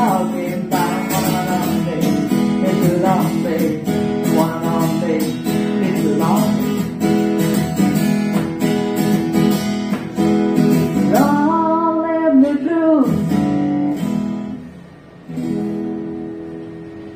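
Acoustic guitar strummed, a Gibson Southern Jumbo, with a voice holding one long sung note about two-thirds of the way through. Near the end a last chord is struck and rings out, fading as the song ends.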